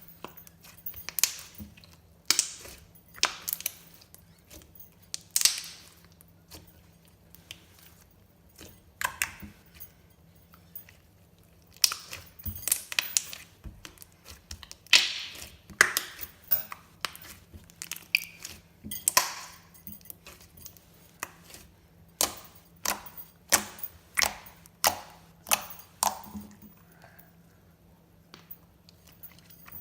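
Glossy slime being squeezed and poked by hand, making irregular sharp wet clicks and pops, sometimes several in quick succession.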